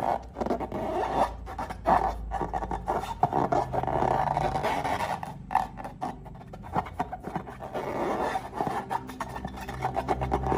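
Slime being worked and squished, a dense irregular crackle of small clicks and rubbing sounds.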